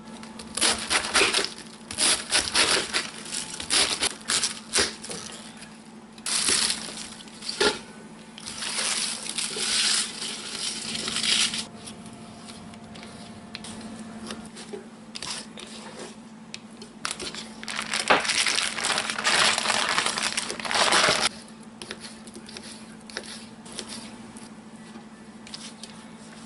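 Cabbage leaves being torn and snapped apart by hand: crisp tearing and crackling in irregular bursts, with quieter stretches between. A faint steady hum runs underneath.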